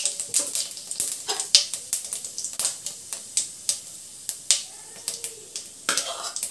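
Cumin seeds crackling and spluttering in hot oil in a non-stick kadai as they temper, with irregular sharp pops several times a second, stirred with a wooden spatula.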